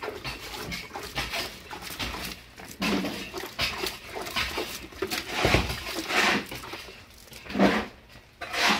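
Water sloshed and splashed from a plastic bucket over wooden stair formwork and rubble. Several short animal calls cut through, the loudest in the second half.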